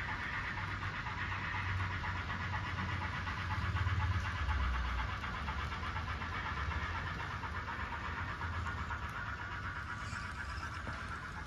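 N scale model freight train rolling along the layout's track: a steady whirring hiss of many small wheels on rail, with a low rumble underneath.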